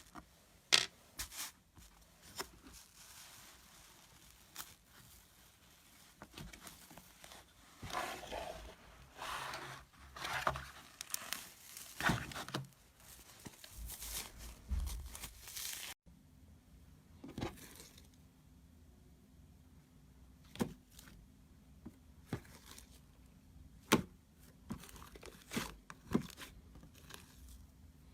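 Slime being handled by hand: sticky tearing and crinkling sounds broken by many sharp clicks and pops.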